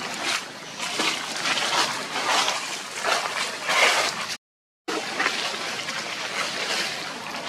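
Dry leaf litter rustling and crunching in a dense run of short scuffs as macaques move over it. The sound cuts out briefly about four and a half seconds in.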